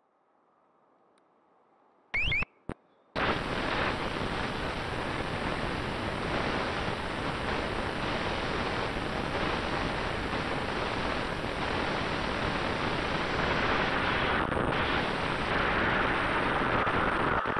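An RC car heard from a camera mounted on it: a short rising whine and a second brief burst about two seconds in as it pulls away, then a steady loud rush of tyre, motor and wind noise as it drives along the asphalt, dropping away at the very end.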